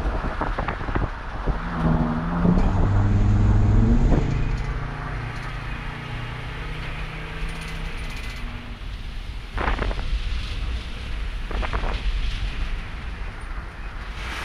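Motor vehicle engine running over a noisy background, its pitch rising and falling in steps about two to four seconds in, the loudest part. Scattered clicks and a couple of sharp knocks follow.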